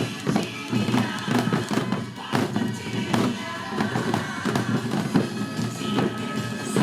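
Several janggu, Korean hourglass drums, struck together in a steady rhythm over a recorded trot backing track.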